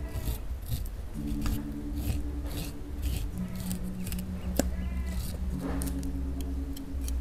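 Kitchen knife slicing kernels off a raw sweet corn cob, about two scraping strokes a second, with kernels dropping into a stainless steel bowl. Soft background music with sustained notes plays underneath.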